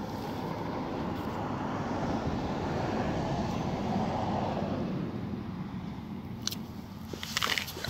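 A vehicle passing: a rushing noise that swells to a peak about four seconds in and then fades away. Near the end, close rustling and crinkling starts near the microphone.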